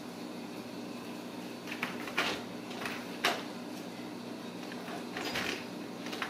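Ragdoll kittens' claws scratching and scrabbling on a corrugated cardboard scratcher in a few short scratchy bursts, over a steady low hum.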